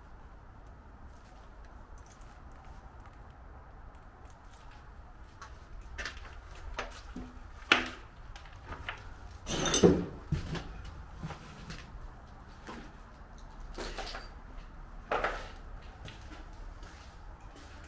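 Footsteps and debris knocking and scraping underfoot on a littered floor, in scattered irregular knocks, the loudest about eight and ten seconds in.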